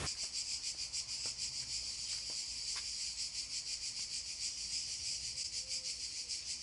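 Insects chirping in a steady, high-pitched trill of rapid pulses, several a second, with a few faint clicks.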